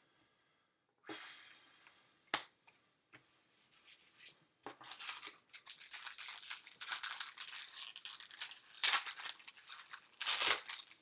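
Foil wrapper of a Bowman Jumbo baseball card pack crinkling and tearing as it is ripped open, with two louder rips near the end. Before that, a few soft rustles and one sharp click of cards being handled.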